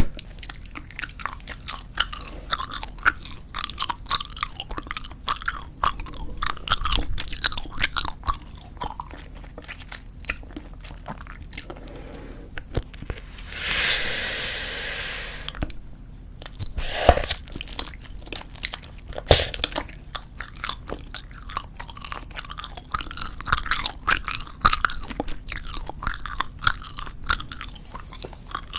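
Close-miked chewing of soft tube bubblegum: a dense run of wet clicks and smacks. About halfway through there is a breathy rush of air lasting about two and a half seconds, which fits a bubble being blown.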